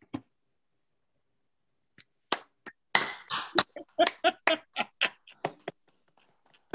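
A few people clapping over a video call: scattered, uneven claps starting about two seconds in and thinning out before the end.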